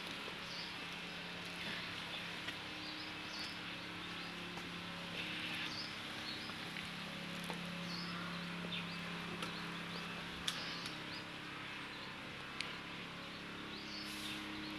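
Outdoor ambience: short high bird chirps repeating every second or so over a low steady hum, with two sharp clicks in the second half.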